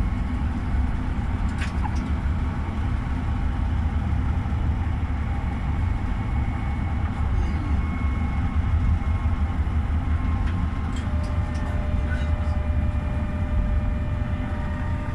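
GEC-Alsthom TFS tram running along its rails, heard from the driver's cab: a steady low rumble with faint thin tones above it. A higher steady tone comes in about two-thirds of the way through.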